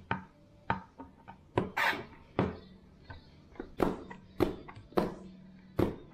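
Chef's knife chopping on a plastic cutting board, cutting through garlic cloves and red chilli: a series of sharp, irregularly spaced knocks of the blade against the board.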